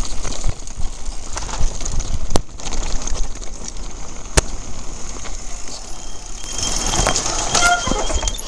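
Mountain bike rolling down a rocky gravel trail, heard from a camera moving with the riders: a steady rumble of tyres on loose stones and the bike rattling, with two sharp knocks about two and a half and four and a half seconds in.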